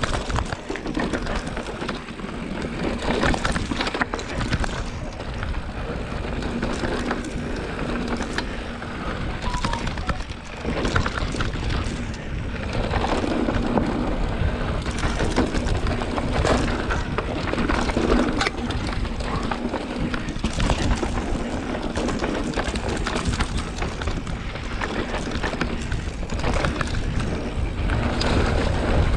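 Mountain bike riding a rough dirt trail: tyres rolling over the ground and a constant rattle and clatter of knocks from the bike, with wind buffeting the microphone.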